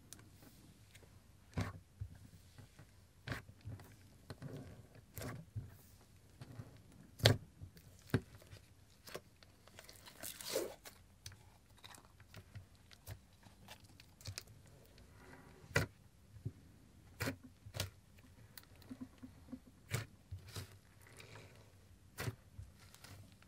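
Hands mixing a thick lilac slime into a crumbly clay muffin, making crunching and sticky popping clicks at irregular intervals. There is a longer crackling squish about ten seconds in.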